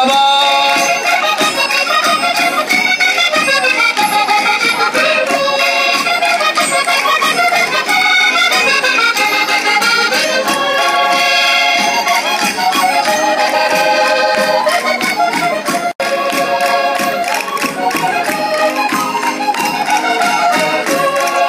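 Live Portuguese folk-dance music: an accordion playing a lively tune over a steady percussion beat. The sound cuts out for an instant about three quarters of the way in.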